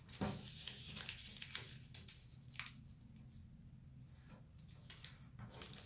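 Sheet of origami paper rustling and crackling as fingers fold and crease it by hand, a run of short, faint crinkles.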